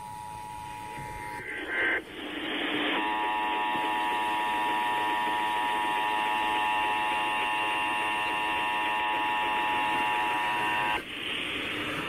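Emergency Alert System attention signal, the steady two-tone beep (853 and 960 Hz) of a Required Monthly Test, played through FM radio speakers. One clean two-tone signal ends about a second in; after a brief burst and a second of static, a harsher, distorted attention signal sounds for about eight seconds and cuts off into static near the end.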